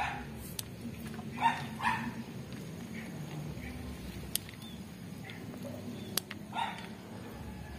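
A dog barking a few short times, twice about a second and a half in and once near the end, with faint sharp clicks of scissors snipping chili pepper stems.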